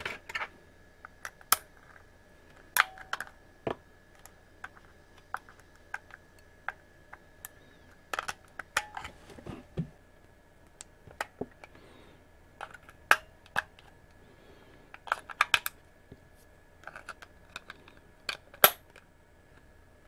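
Irregular plastic clicks and taps as AA batteries are taken out of and fitted into an air-conditioner remote control's battery compartment, and the snap-on battery cover is put back. The sharpest click comes near the end. A faint steady high tone sits underneath.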